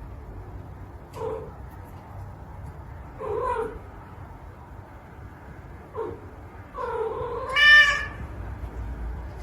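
A cat meowing four times: short calls about a second and three seconds in, a brief one around six seconds, then a longer, louder meow near the end.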